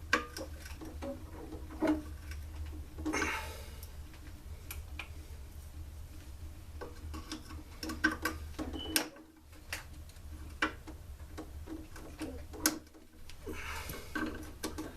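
Irregular clicks, taps and small knocks of hand tools and plastic and metal parts being handled while a Stihl SR 420 backpack blower is taken apart, over a steady low hum.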